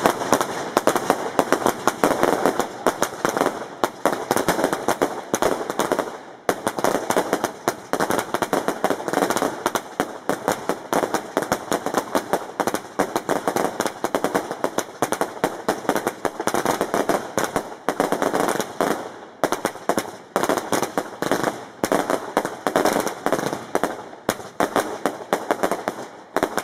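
Six Jorge 'Wenus' firework cakes firing together: a dense, unbroken barrage of launch shots and bursting reports, many a second, with brief lulls about six and nineteen seconds in.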